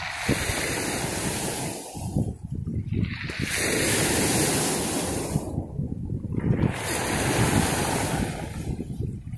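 Small sea waves breaking and washing up a shingle beach of rounded pebbles, in three surges of foamy hiss a couple of seconds each with short lulls between, and wind rumbling on the microphone.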